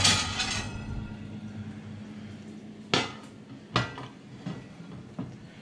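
Cast iron griddle pan scraping out over the oven shelf, then set down on a glass-ceramic hob with two sharp metallic knocks under a second apart and a couple of lighter clinks. A steady low hum runs underneath.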